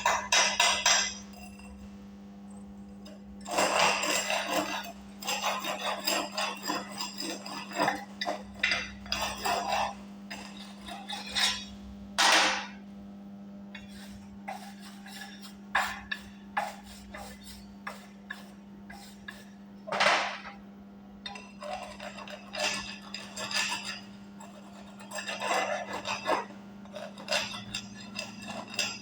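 Chipping hammer striking a fillet weld to knock off the slag left by a 6013 electrode: bursts of rapid metallic clinks with short pauses between them. A steady low hum runs underneath.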